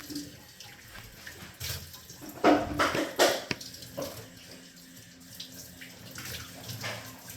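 Kitchen tap running into the sink while a frying pan is washed by hand, with a couple of louder splashes or knocks about two and a half to three and a half seconds in.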